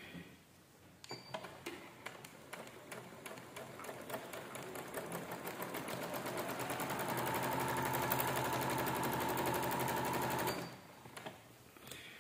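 Electric domestic sewing machine stitching a seam. It starts with slow separate stitches about a second in, speeds up over several seconds to a fast steady run, then stops suddenly near the end.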